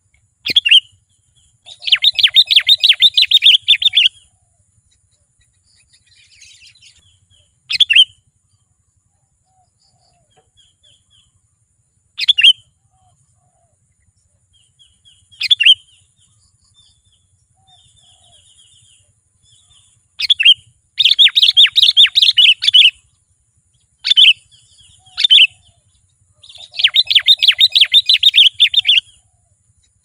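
Sooty-headed bulbul calling: single sharp, falling whistled notes every few seconds, and three bursts of fast chattering notes, each about two seconds long, early on, near the two-thirds mark and near the end.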